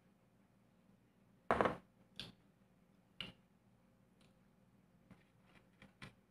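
Handling noises of a snack at the table: after a drink from a paper cup, there are two short, louder knock-and-rustle sounds about one and a half and two seconds in, then a sharp tap about three seconds in as the cup is put down. Faint clicks and ticks follow near the end as fingers pick at fried banana rolls on a plate.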